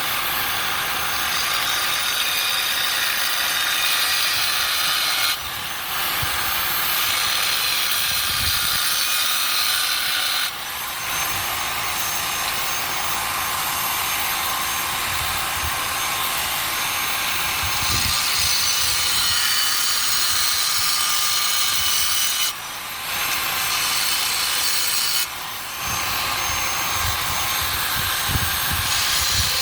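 Angle grinder cutting through the steel of an old propane tank: a steady, high-pitched grinding whine that dips briefly four times as the disc eases off the cut.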